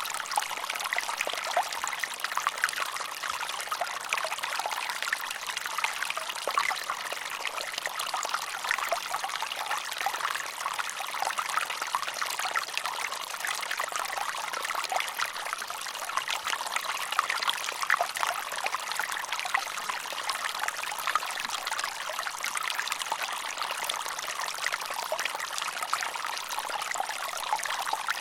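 Mountain stream running over rocks: a steady babble and trickle of water with many small splashes.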